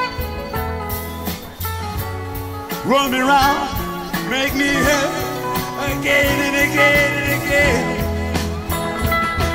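Live rock band playing an instrumental passage: an electric lead guitar bends and holds notes with a wide vibrato over bass and drums.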